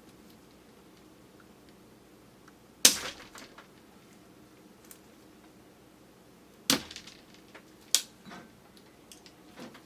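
Eating sounds of chewy grape jelly: three sharp, loud wet pops at about three, seven and eight seconds in, the first the loudest, with softer mouth clicks between them, picked up by a camera's built-in microphone.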